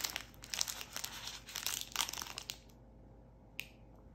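Panini Mosaic Football 2022 foil card pack crinkling and tearing as it is ripped open by hand, stopping about two and a half seconds in; one short click near the end.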